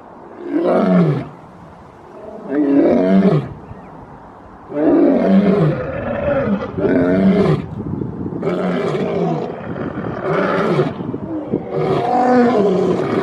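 A lion roaring: two drawn-out calls a couple of seconds apart, each falling in pitch, then, about five seconds in, a run of shorter, closely spaced roars.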